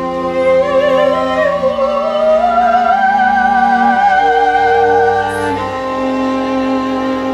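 Soprano singing a slow, sorrowful song with wide vibrato over sustained string chords; her line climbs to a long held note and stops about five and a half seconds in, leaving the strings holding a chord.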